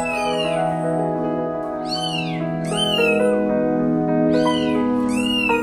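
A newborn kitten mewing: about five short, high-pitched cries, each rising and then falling in pitch, over background music.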